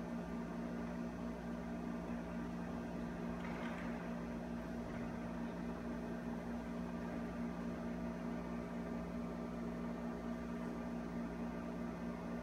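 Steady electrical hum with a few constant low tones over faint background hiss, the room tone of a large hall; a faint, brief sound about three and a half seconds in.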